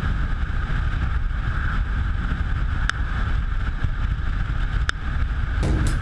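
Wind rush on the microphone and the running of a Honda CB500 parallel twin at cruising speed, a steady, even noise. Music with a beat comes in just before the end.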